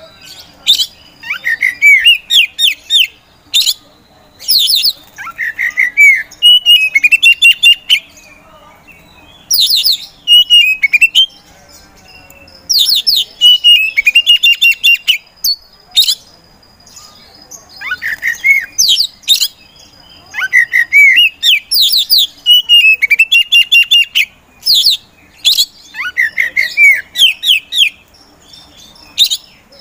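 Oriental magpie-robin (white-bellied 'kacer poci') singing vigorously in repeated bursts of a second or two with short pauses between. The phrases mix curving whistles with rapid, sharp high notes.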